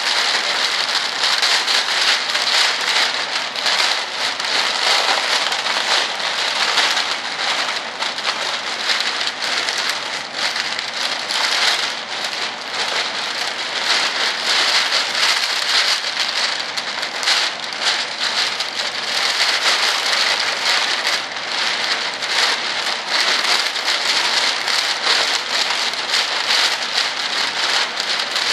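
Clear plastic bag film being handled and pulled around: a continuous loud crinkling and crackling with no pauses.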